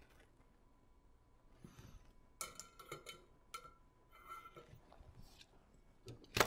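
Faint clicks and light metallic scraping as a soldering iron is set back into its coiled-wire holder stand, with one sharper click near the end.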